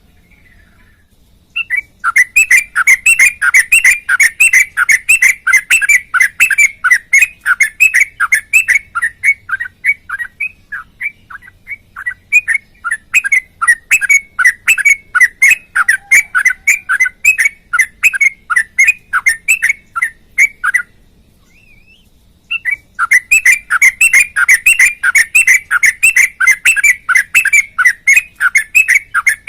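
Yellow-vented bulbul (trucukan) singing a long, fast run of repeated sharp notes, about four a second. It breaks off briefly about two-thirds of the way through, then starts again.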